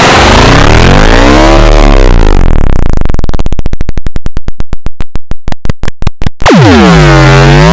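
Very loud, distorted synthesized sound effect. Its pitch sweeps down and back up, then it breaks into a run of pulses that slow down over about three seconds, then it swoops down and rises again near the end.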